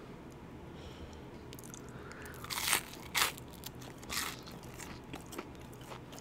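Close-miked chewing of crispy breaded fried chicken: after a quiet start, a few loud crunches come between about two and a half and four and a half seconds in.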